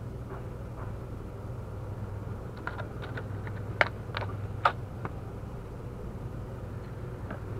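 Light clicks and taps of small fishing tackle being handled by hand, about a dozen in two and a half seconds with two sharper ones, over a steady low drone.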